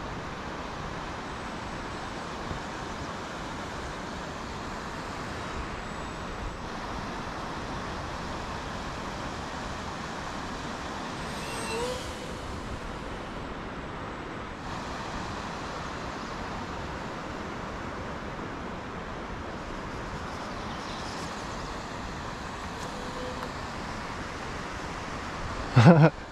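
Steady outdoor noise, like wind or far-off traffic, with a brief rising whistle-like tone about halfway through and a short loud burst near the end.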